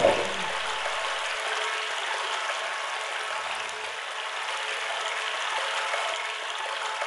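Steady rush of water flowing into a pump-station wet well as it fills while both submersible pumps stand paused, with the pumps' low hum dying away in the first second or so.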